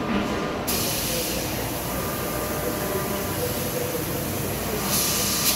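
IBARMIA ZV 50/3000 vertical machining center running with coolant spraying inside its enclosure, a steady mechanical din. A bright hiss comes in under a second in, swells briefly near the end, and cuts off just before it.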